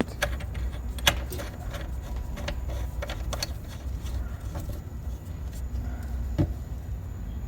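Scattered light clicks and knocks of tools and plumbing fittings being handled in the cabinet under a sink, over a steady low rumble; the sharpest knock comes about a second in.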